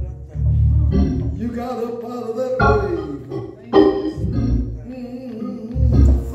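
Church organ playing sustained chords over deep bass notes, the chords changing every second or so.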